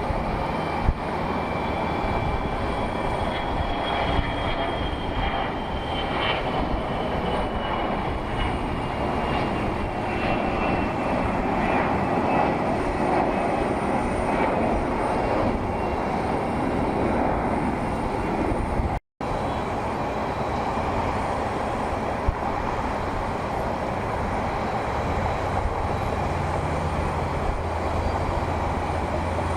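Jet airliner engines running steadily, a dense continuous noise with a faint high whine that slowly falls in pitch during the first half. The sound cuts out for an instant about two-thirds of the way through.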